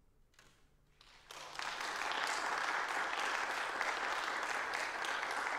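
Audience applause: a moment of hush with a few stray claps, then the whole hall clapping from about a second in, dense and steady.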